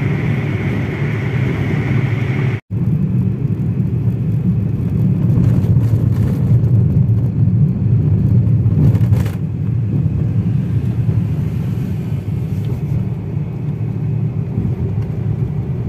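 Steady road noise inside a moving car at highway speed, a low rumble of tyres and engine. The sound breaks off for an instant about three seconds in.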